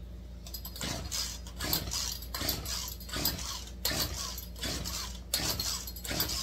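Poulan two-stroke chainsaw being pull-started again and again, about one rope pull every three-quarters of a second. Each pull turns the engine over with a rasp of the recoil starter, but it never fires; the owner suspects it is flooded.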